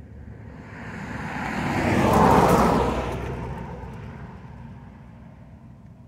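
A vehicle passing at speed: road and tyre noise that swells to a peak about two seconds in, then fades away.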